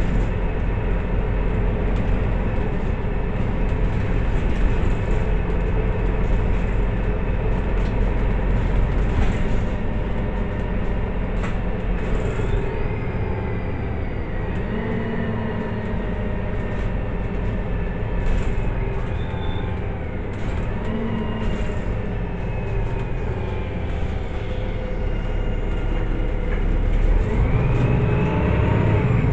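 Interior of a Solaris Urbino 18 IV articulated city bus under way: a steady low drivetrain rumble with road noise and light rattles. A thin whine slides slowly down in pitch through the middle, then climbs again near the end as the running grows louder.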